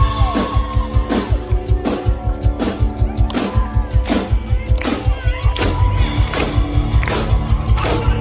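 Live rock band playing loud through a concert PA, coming in all at once with fast, driving drums and sustained guitar chords on a steady beat.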